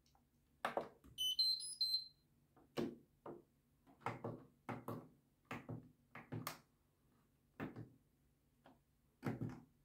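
Whirlpool FreshCare+ washing machine's control panel sounding a short electronic beep tune about a second in, amid a string of irregular knocks and clicks from the machine being handled.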